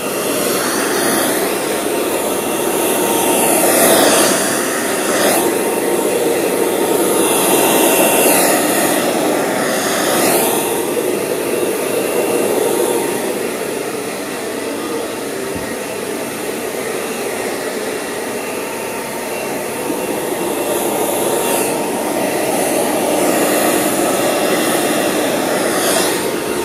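Handheld hair dryer blowing steadily, a loud airy rush that swells and eases several times.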